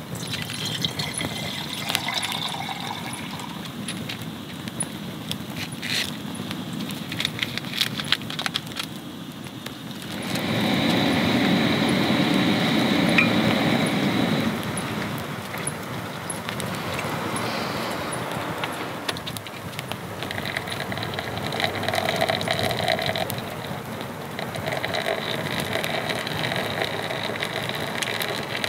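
Camp coffee being made: water is poured from a plastic bottle into a small stainless gooseneck kettle on a gas camping stove. Later, hot water is poured from the kettle's spout over a drip coffee bag in a mug. There is a louder rushing stretch partway through.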